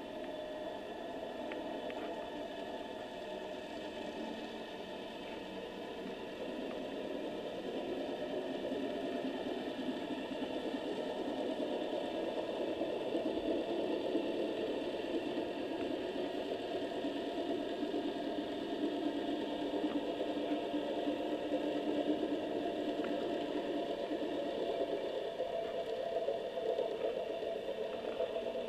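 Steady underwater noise picked up by a submerged camera: a droning hum that grows somewhat louder from about seven seconds in.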